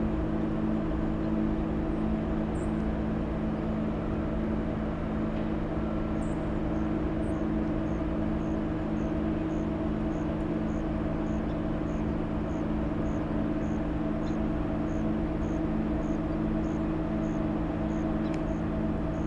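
Steady industrial drone from an aluminium plant's machinery, several constant low tones over a rumble, which the uploader takes for a giant industrial engine running nonstop. Faint high chirps repeat about twice a second through the middle.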